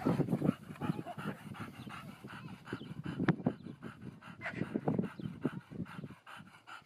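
A bulldog-type dog panting in quick, irregular breaths.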